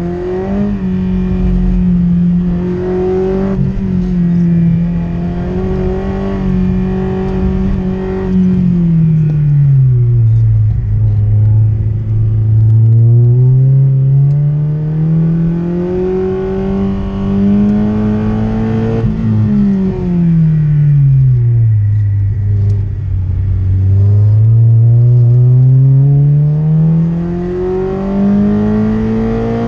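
Peugeot 106 Rallye's four-cylinder petrol engine heard from inside the cabin, held at high revs, then easing off and building revs smoothly again, twice.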